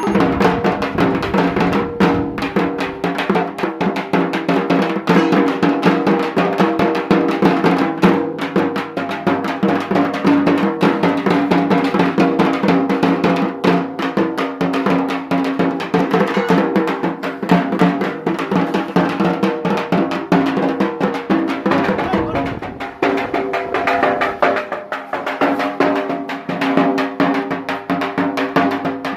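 Dhak, the big Bengali barrel drum, beaten with sticks in a fast, continuous rhythm, with steady ringing tones under the strokes. The playing thins briefly about two-thirds of the way through.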